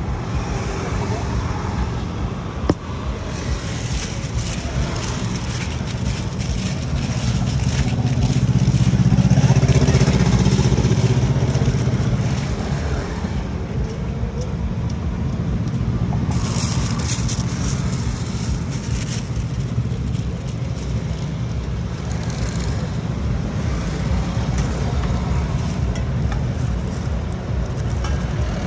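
Steady roadside traffic noise, swelling as a vehicle goes past about a third of the way in, with aluminium foil crinkling now and then as it is folded.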